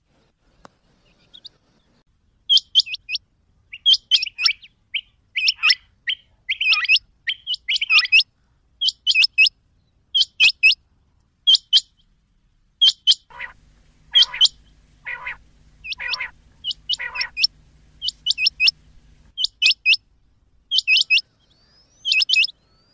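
Rain quail calling: sharp high notes in quick pairs and triplets, one group about every second. From about 13 to 19 seconds in, five lower-pitched calls about 0.8 s apart come in over a steady low hum.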